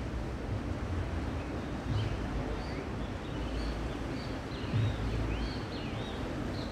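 Wind rumbling on the microphone, with small birds chirping in short rising and falling notes.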